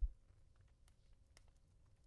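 A hand patting a pillow: one soft, dull thump right at the start. Faint scattered crackles of a fireplace sound continue underneath.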